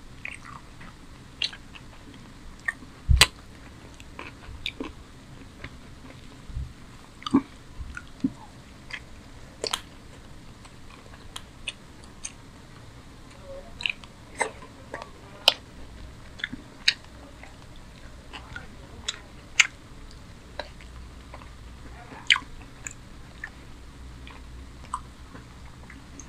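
Close-miked eating of chicken curry with rice by hand: wet chewing and biting with irregular sharp mouth clicks and smacks, roughly one a second.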